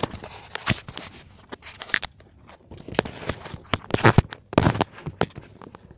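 Irregular rustling, scraping and tapping of clothing and gear moving right against the microphone: jacket fabric brushing the camera and small knocks as it is handled.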